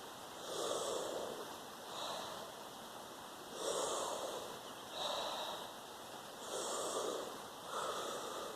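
A person doing deep, rhythmic breathing exercise breaths, audibly rushing air in and out. About three breath cycles, each a stronger breath followed about a second later by a weaker one.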